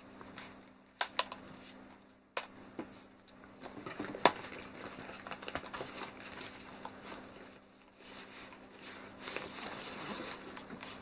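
A folded DJI Mavic Pro drone being pushed into its padded fabric shoulder bag: fabric rustling and scraping with a few sharp plastic clicks and knocks. The loudest knock comes about four seconds in. The drone is a snug fit in the compartment.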